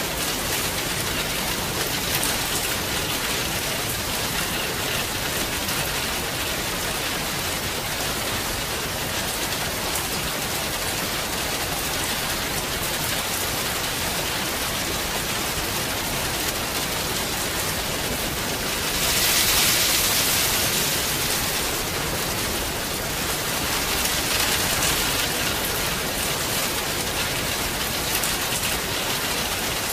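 Steady rain falling with a dense, even hiss. It swells louder for a few seconds about two-thirds of the way through.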